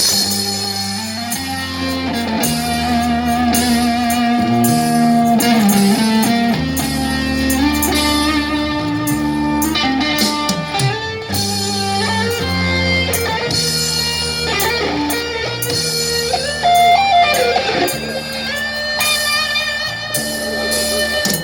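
Instrumental guitar music: a guitar plays a lead melody of held notes with bends and vibrato over a strummed backing and bass, with no singing.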